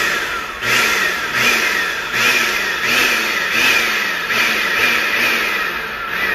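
Hamilton Beach blender motor running with no jar or load, worked with the pulse button: its whine rises as the button is pressed and sags as it is let go, about every three quarters of a second.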